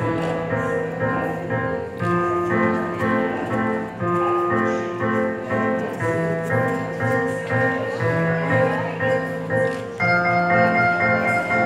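Instrumental music with a bright, repeating melody in phrases about two seconds long; higher notes join and the sound grows fuller about ten seconds in.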